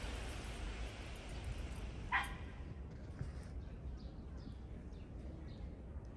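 A dog barks once, sharply, about two seconds in, over a steady outdoor hiss; a few faint short calls follow.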